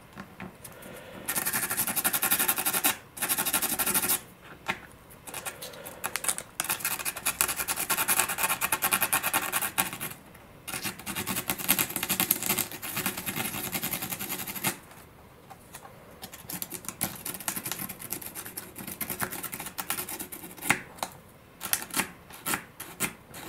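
Coarse sandpaper rubbed quickly back and forth around the end of a carbon-fibre pushrod, scuffing its surface all the way around. The rasping strokes come fast and steady for about the first fifteen seconds, then turn sparser and quieter.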